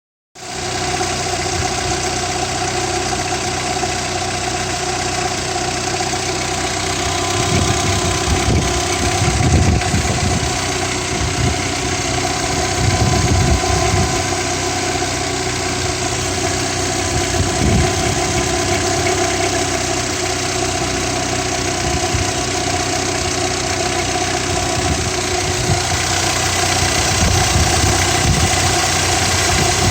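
Volkswagen Passat B3 engine running steadily at idle, with a strange periodic knock that comes every few seconds and is clearest in the middle. The owner cannot tell what causes it.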